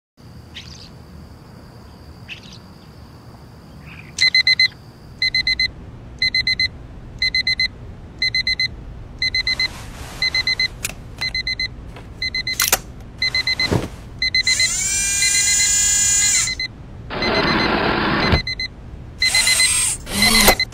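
Digital alarm clock beeping, starting about four seconds in: groups of about four quick high beeps, roughly one group a second. Partway through, a few clicks and a couple of seconds of rushing noise play alongside it.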